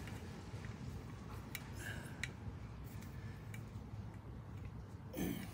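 Faint handling noises as rubber breather hose is worked around a motorcycle's air cleaner backing plate: a few small clicks and a short rustle, then a louder brief rub or bump near the end.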